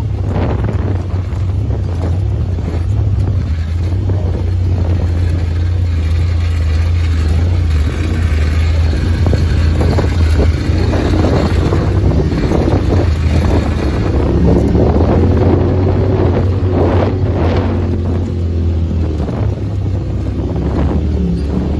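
Engine of an off-road side-by-side running steadily as it drives over a rough dirt trail, with wind on the microphone and occasional knocks and rattles from bumps.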